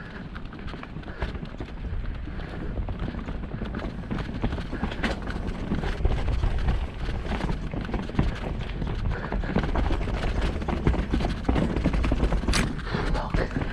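Mountain bike descending a rough dirt trail: tyres rumbling over roots and ruts with a constant irregular clatter of the bike rattling, over a heavy low rumble of wind on the camera microphone. A sharp knock stands out near the end.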